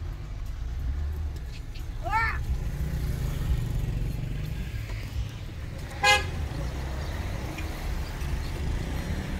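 Low, steady car engine and road rumble heard from inside the cabin, with one short, loud vehicle horn toot about six seconds in. A brief rising call comes about two seconds in.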